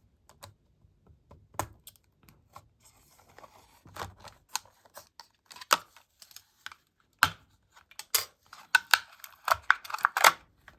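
Plastic blister pack of a carded die-cast toy car being cut and prised open: scattered crisp plastic clicks and crackles, sparse at first and coming thick and fast over the last few seconds.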